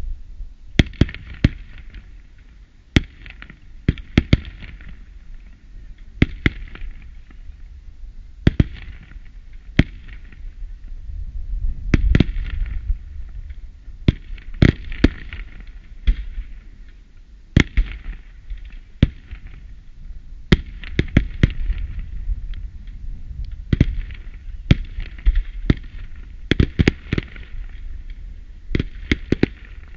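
Fireworks display: aerial shells bursting in sharp bangs at uneven intervals, many followed by crackling, with the bangs coming thicker and faster near the end.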